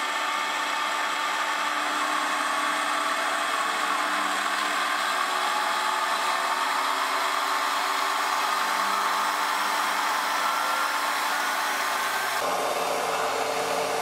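Benchtop drill press running while its variator pulleys are wound up from low speed toward about 2,700 RPM: a steady motor and belt whine that rises slowly in pitch. The tone shifts abruptly near the end, where the sped-up footage changes rate.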